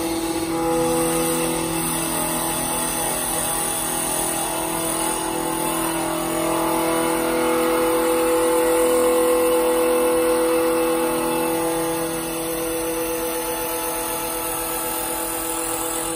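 CNC wood turning lathe spinning a wooden blank while its cutter shaves it: a steady motor whine with the hiss of cutting, a little louder around the middle.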